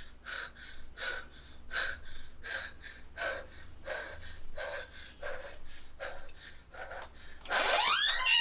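A woman breathing hard and fast, short gasping breaths in and out, about two to three a second. Near the end a sudden, much louder burst of eerie film music with sliding, rising tones cuts in over it.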